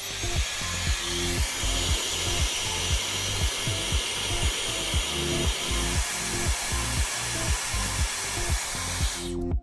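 Regular hair dryer blowing steadily, heating a smartwatch display to ease prying it open; it cuts off suddenly near the end.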